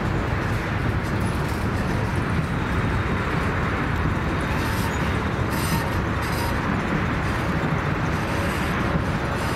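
Freight train cars (tank cars and covered hoppers) rolling past close by, a steady loud rumble of steel wheels on rail. A few short, sharp bursts of higher noise stand out about halfway through.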